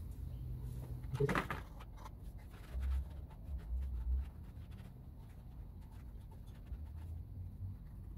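A shop towel wiping and scrubbing the metal water pump base of a Mercury Force 120 HP outboard's lower unit: soft rough rubbing with many small scratchy ticks. There are a few dull low thumps around three to four seconds in as the housing is handled.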